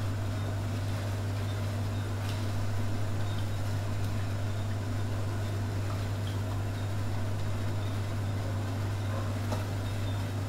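Steady low hum under a pot of soup boiling on a gas burner, with a few faint clicks of a metal spoon in the pot as light soy sauce is added and stirred in.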